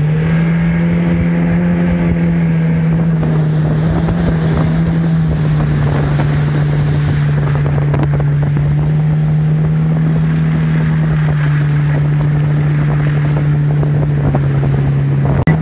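Mercury outboard jet motor running at speed with a steady drone that holds one pitch, over rushing water and wind noise.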